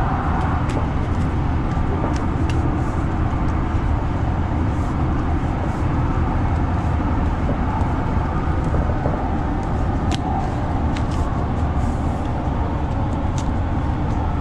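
Steady rumble of an LA Metro train running, heard from inside the passenger car, with a few faint sharp ticks scattered through it.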